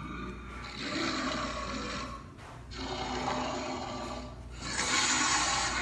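Wolf growl sound effect: three harsh, rasping growls, each about a second and a half long, the last one the loudest.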